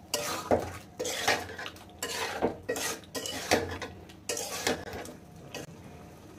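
A metal spoon scraping and knocking against a kadai while chicken, onion and capsicum are stirred, at about two strokes a second.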